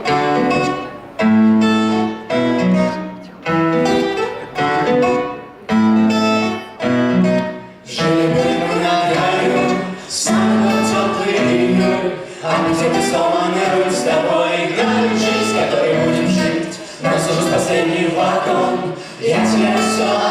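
Song intro: short phrases of plucked-string chords, joined from about ten seconds in by a fuller backing with wordless voices.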